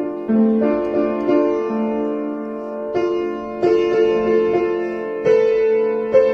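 Piano improvisation: notes and chords in the middle register struck at an unhurried, uneven pace and left to ring, with no deep bass notes.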